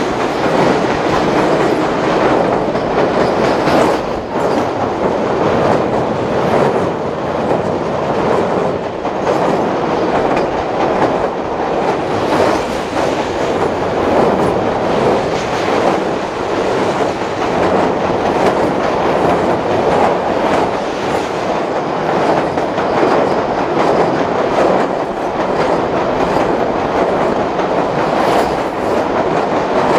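Passenger train carriage rolling steadily over a steel truss railway bridge, heard from an open carriage window: a loud, continuous noise of wheels on rail and the ringing steel structure, with faint irregular clicks.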